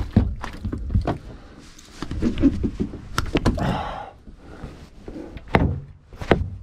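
Handling noise: a string of sharp knocks and thuds with a stretch of rustling in the middle, from working a hook out of a halibut with pliers and rod on a boat deck. Near the end a jacket sleeve brushes over the chest-mounted camera.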